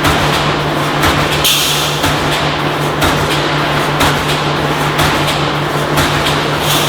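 Automatic steel mesh welding machine running: a steady hum with a sharp clank about once a second as it works through its cycle, and a short hiss about a second and a half in and again at the end.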